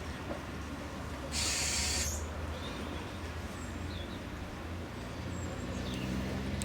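Steady low mechanical hum of a funicular railway car on its track, with a short hiss about a second and a half in and a few faint high squeaks.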